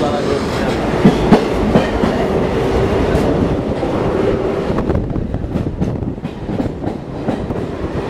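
Passenger train running, heard through an open coach window: the wheels clatter steadily over the track, with a couple of sharper knocks a little over a second in.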